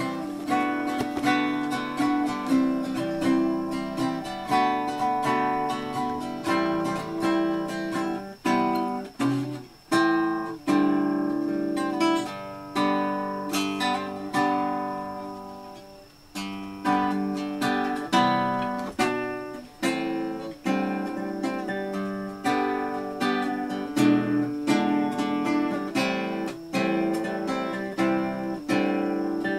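Acoustic guitar being strummed and picked in chords, with a short break about nine seconds in and a chord left to ring and fade about sixteen seconds in before the playing starts again.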